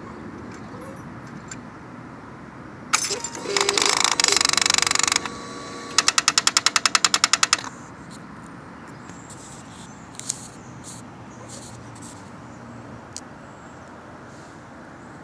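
Electrical buzzing for about two seconds, then a fast even run of sharp clicks for under two seconds. It comes from the fuel-injection and throttle-body parts under the raised fuel tank of a 2011 Suzuki GSX-R 600, and the clicks are the clicking noise being traced.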